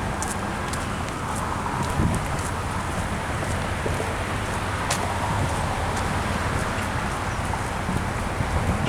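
Steady road traffic noise at a busy intersection, a low rumble of passing cars, with wind on the microphone and a sharp click about five seconds in.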